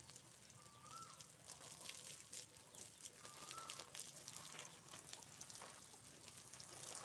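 Quiet farmyard with two faint short animal calls, one about a second in and another about halfway through, over faint scattered ticks and rustling.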